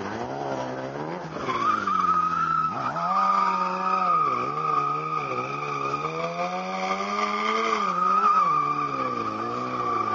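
BMW S1000RR's inline-four engine revving up and down again and again while the rear tyre squeals on the asphalt. The squeal starts about a second and a half in and holds a steady high pitch.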